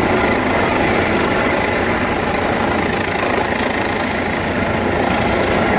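Steady engine drone with no clear rhythm, from a running motor vehicle.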